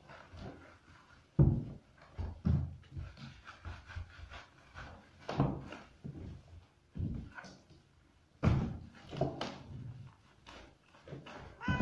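Wet cat being lathered by hand in a bathtub: irregular thumps and rubbing noises as the cat and hands bump against the tub. A cat's meow starts just before the end.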